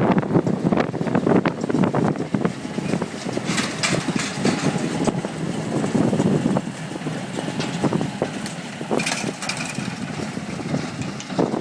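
Tractor running in the hay field, largely covered by heavy wind buffeting the microphone.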